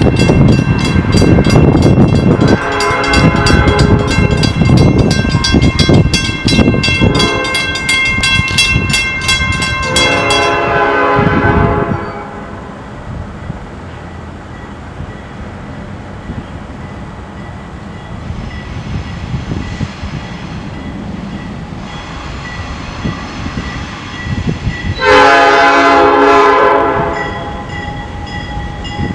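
Freight locomotive's air horn sounding its grade-crossing warning: long blasts for about the first twelve seconds, a quieter stretch of low train rumble, then another blast near the end. A crossing bell rings steadily under the horn.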